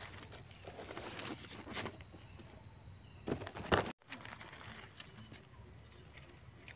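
Dry leaf litter crackling and rustling as hands dig and pull mushrooms from it, with a few sharper crackles just before the middle. Under it runs a steady high-pitched insect trill, joined by a second, higher trill after a sudden cut.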